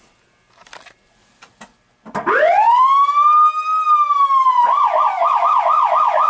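An older Federal Signal siren, silent for the first two seconds apart from a few faint clicks, winds up quickly into a slow wail, then about two and a half seconds later switches to a fast yelp of about four cycles a second.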